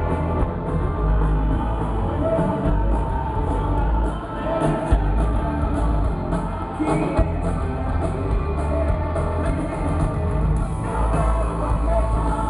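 Live Christian rock band playing in an arena: a singer's voice over electric guitars, drums and heavy bass, heard from the crowd.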